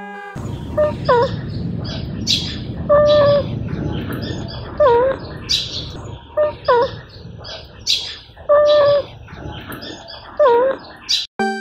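Animal calls repeating about every two seconds, each a short pitched call that bends in pitch, with higher chirps between them, over a steady low rumble.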